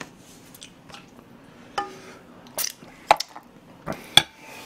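Chopsticks clinking against a metal soup pot: several sharp clinks in the second half, some with a brief metallic ring, between soft eating sounds.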